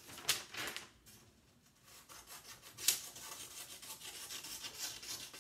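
Scissors cutting through a sheet of copy paper: a series of crisp, rasping snips with paper rustling, pausing about a second in, then a sharp click and a longer run of cuts to trim off a strip.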